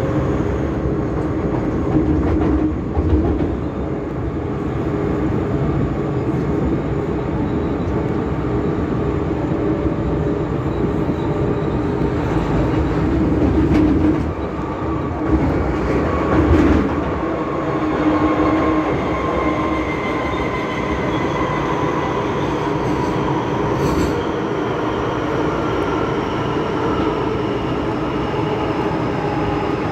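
MTR Kwun Tong Line M-Train, a Metro-Cammell electric multiple unit, running along the line, heard from inside the passenger car as a steady rumble of wheels on rails. Through the second half a motor whine slowly falls in pitch.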